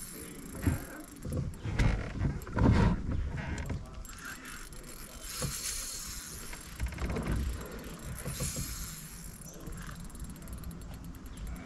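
Hobie kayak's pedal drive being pedalled under way, with mechanical clicking and water moving along the hull. A few loud, low, irregular bumps come about two to three seconds in and again around seven seconds.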